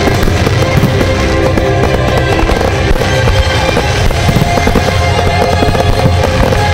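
Fireworks display set to music: sustained musical notes play throughout while fireworks burst and crackle continuously over them in rapid succession.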